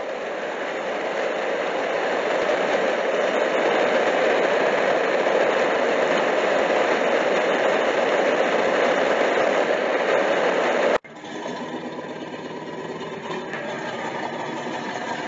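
Steady rain that fades in and then cuts off abruptly about eleven seconds in. A motor-driven machine takes over, running with a steady hum.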